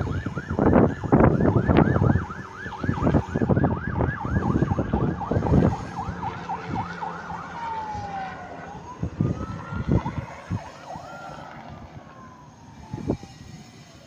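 Emergency-vehicle siren in a fast yelp, about three sweeps a second, changing about halfway through to a slow rising and falling wail that fades away. A heavy, pulsing low rumble sits under the first half.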